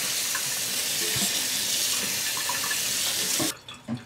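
Kitchen tap running onto boiled egg noodles in a plastic colander in a sink as they are rinsed, a steady hiss of water that stops suddenly about three and a half seconds in, followed by a few faint drips.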